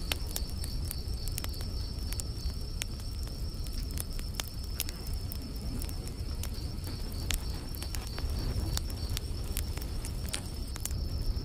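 Wood campfire crackling, with irregular sharp pops several times a second, over a low rumble. Crickets chirp steadily and high in the background.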